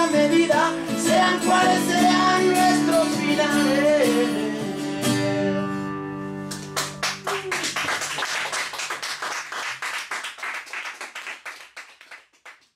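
Acoustic guitar and voice finish a song in an acoustic rock set, with a last wavering sung note over a held chord that rings out about six seconds in. Hand clapping follows and fades away to nothing near the end.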